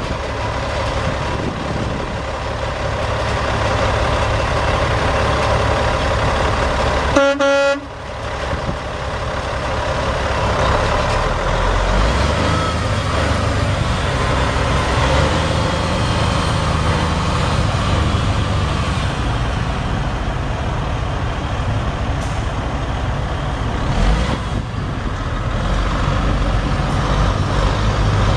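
A Caterpillar C12 inline-six turbo diesel in a Freightliner Century Class semi truck running, its pitch rising and falling in the second half as the engine speed changes. The truck's horn sounds once, briefly, about seven seconds in.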